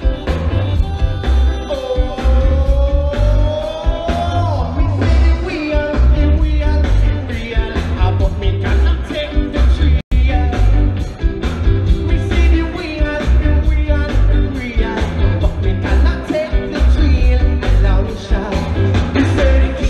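Live ska band playing with a singer, heavy bass and a steady drum beat. The sound drops out for a split second about halfway through.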